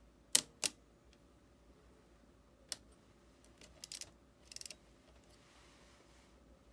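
Epson R-D1 rangefinder camera's shutter firing: two sharp clicks about a third of a second apart. A single click follows, then a run of lighter mechanical clicks and a short rattle.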